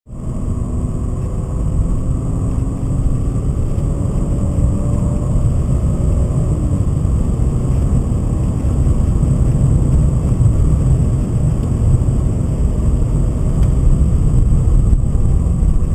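Cabin noise of a BMW 528i with its 2.8-litre M52 straight-six and manual gearbox driven hard: a steady engine drone under heavy road rumble, growing slowly louder.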